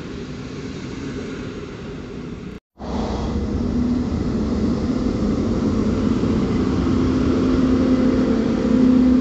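Passenger coaches rolling past, then after a short cut a PKP Intercity EP09 electric locomotive hauling coaches along the platform, its steady electric hum growing louder as it draws level.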